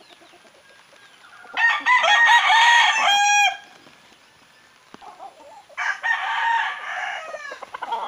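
Gamecock rooster crowing once, loudly, its call ending on a drawn-out note, followed near the end by a second, quieter rooster call.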